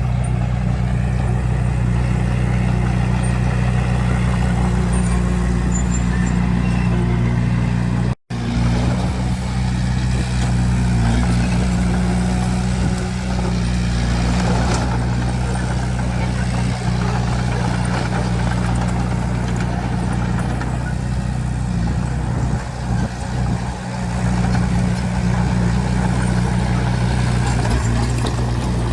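Bulldozer's diesel engine running steadily with a deep, even hum. The sound drops out for an instant about eight seconds in.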